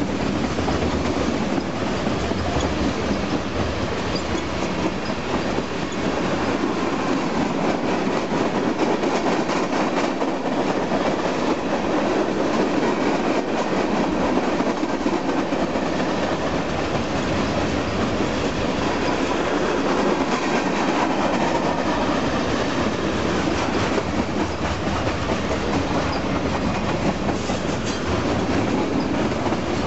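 Long freight train rolling past at a steady speed, the cars' wheels clattering over the rails in a continuous rush of noise with dense clicking.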